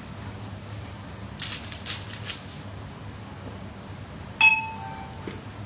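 A spatula scrapes a few times against the pan as pork is stir-fried. About four and a half seconds in, a single sharp clink rings briefly; it is the loudest sound.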